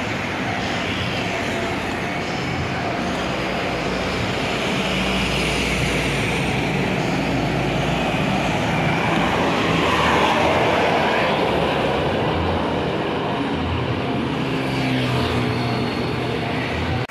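Large bus passing with a steady engine rumble and road noise, swelling about ten seconds in and then easing off.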